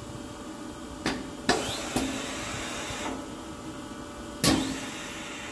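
Counter-rotating spindle slide of a Phillips gun drilling machine traversing out and back in. Sharp knocks come as it starts and stops, the loudest about a second and a half in and again near the end, with a steady running noise of the traverse for about a second and a half between them.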